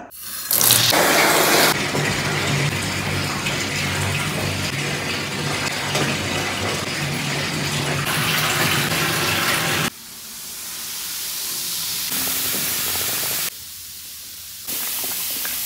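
Water running from a faucet into a bathtub as it fills, heard in several cut-together stretches: a full rushing gush at first, then a higher hiss that grows louder, a quieter moment, and the rushing again near the end.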